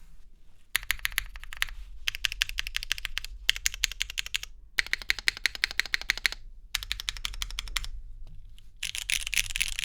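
Typing on a custom mechanical keyboard with lubed, spring-swapped Cherry MX1A Black linear switches, an aluminum plate and GMK keycaps: rapid keystrokes in runs of about a second with brief pauses, and a denser, faster flurry near the end.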